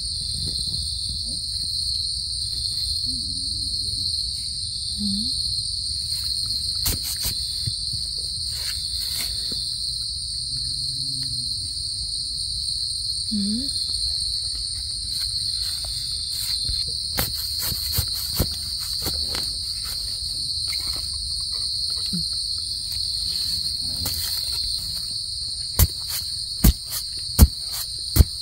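Steady high-pitched drone of insects. Near the end, a few sharp clicks stand out as the loudest sounds.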